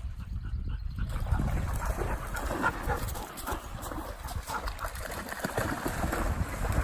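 A dog giving short, repeated whining cries, while dogs splash through a shallow stream. Wind rumbles on the microphone underneath.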